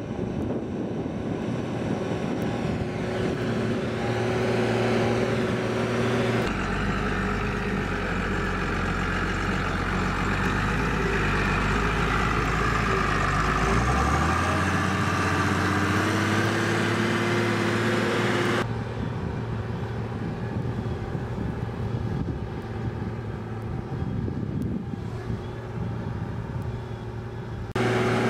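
Hürlimann Elite 135 tractor's diesel engine running steadily under load as it pulls a mounted plough through the soil, its pitch stepping up partway through. The sound changes abruptly a few times.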